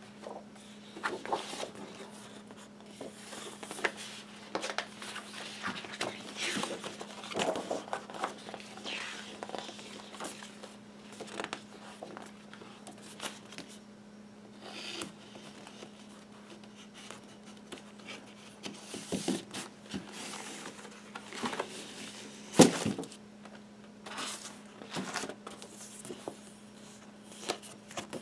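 LP booklet pages being turned and a cardboard gatefold sleeve and paper record sleeve handled: irregular paper rustles and light knocks, with one sharper knock about two-thirds of the way through. A steady low hum sits underneath.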